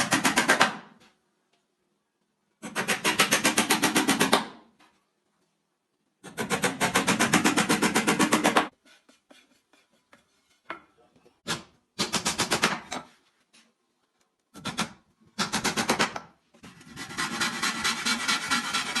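A tool scraping across wood in repeated bursts, each a quick run of rasping strokes lasting up to about two seconds, with short pauses between them.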